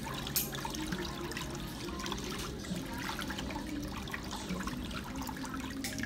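Water churning and trickling in a pedicure spa's foot bath, with scattered small clicks and splashes.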